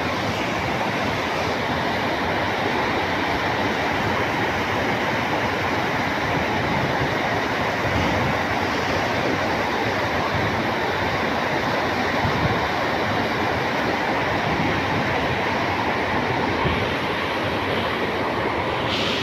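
Water pouring out through open dam gates and churning white in the basin below, a steady loud rushing roar with no change in level.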